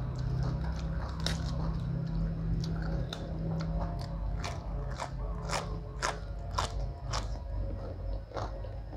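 Close-up crunching as a person bites and chews crisp raw Chinese cabbage leaf: a run of sharp, crisp crunches that come thickest in the second half.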